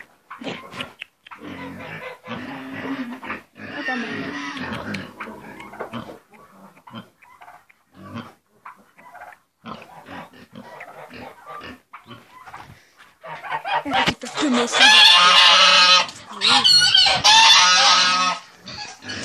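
Domestic pigs grunting, then two loud, long, high squeals near the end.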